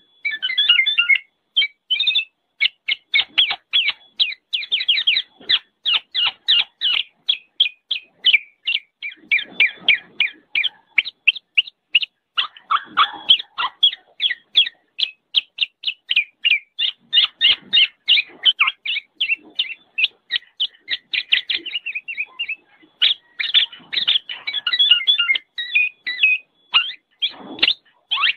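Kepodang (black-naped oriole) calling noisily: a rapid run of short, sharp notes, several a second, with brief lulls, kept up throughout.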